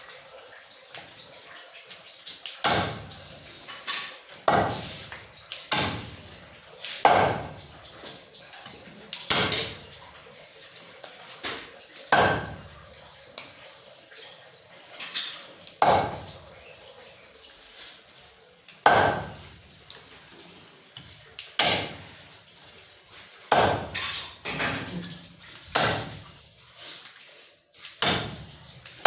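A butcher's blade chopping through goat leg meat and bone on a block: sharp, irregular strikes every second or two, some with a brief ring.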